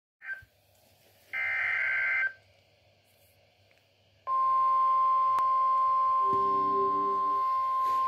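NOAA Weather Radio emergency alert coming through a Midland weather alert radio: a one-second burst of buzzy SAME header data tones, a pause, then the steady 1050 Hz warning alarm tone, which starts about four seconds in and holds. These tones announce an incoming warning message, here a tornado warning.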